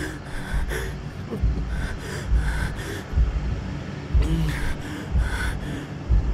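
Frightened, ragged breathing with sharp gasping breaths, about one every half second, over low thuds.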